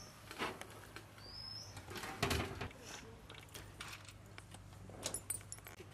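Faint handling noises as wooden toothpicks are pushed into a raw whole lamb carcass on a metal plate: scattered light clicks and rustles, with one dull knock about two seconds in. A short rising bird chirp comes about a second and a half in.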